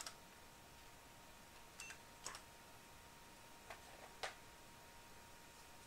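Near silence broken by about six faint, isolated computer-keyboard key presses as the BIOS menus are worked, three of them close together about four seconds in. A faint steady tone runs underneath.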